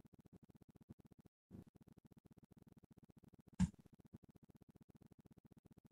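Near silence: faint low room tone on an open call microphone, with one short click a little past halfway.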